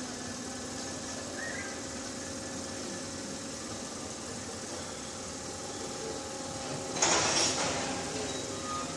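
Diesel locomotive idling with a steady hum, then a sudden loud burst of noise about seven seconds in that fades over a second or so, which fits train coupling.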